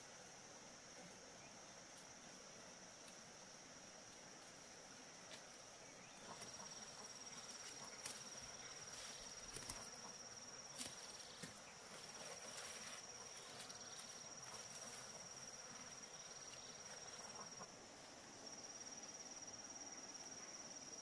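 Insects calling in a steady high-pitched drone that grows a little louder about six seconds in and breaks off briefly twice. A few faint clicks fall in the middle.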